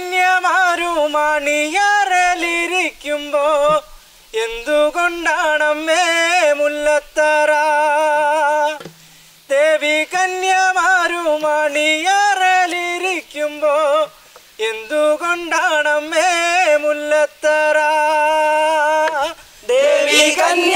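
A man singing a Malayalam folk song (nadanpattu) solo and unaccompanied, in long held notes with wavering ornaments and short pauses for breath between phrases. Near the end more voices join in.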